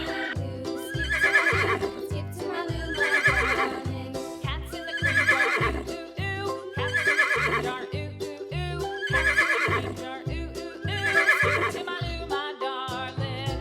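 Horse whinnying six times, about every two seconds, over children's background music with a steady beat.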